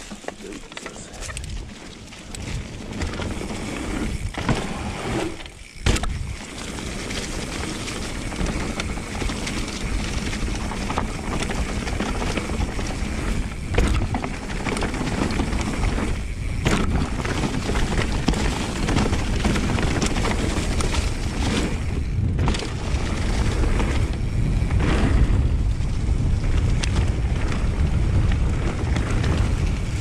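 Mountain bike rolling fast down a dirt trail covered in fallen leaves: tyres rolling over dirt and leaves, with wind on the microphone swelling as speed builds. A few sharp knocks as the bike hits bumps.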